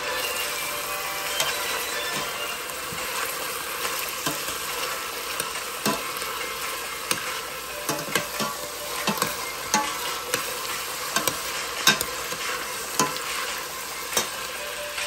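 Sliced onion and mushroom sizzling as they sauté in a stainless steel pot, being cooked until translucent, while a metal spoon stirs them and scrapes and knocks irregularly against the pot, the sharpest knock about twelve seconds in.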